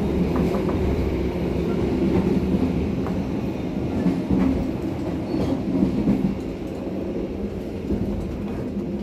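Passenger train coach in motion heard from inside: a steady low rumble of wheels and running gear on the track, with a few light clicks.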